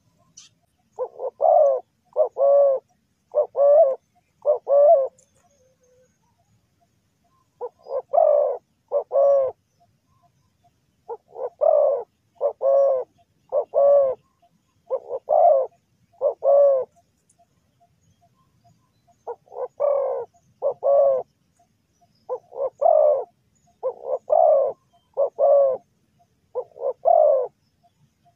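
Spotted dove cooing: a run of loud, repeated coos in short phrases of two to five notes, separated by pauses of one to three seconds.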